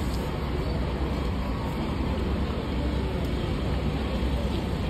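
Steady low rumble and hiss of outdoor background noise, with faint voices in the distance.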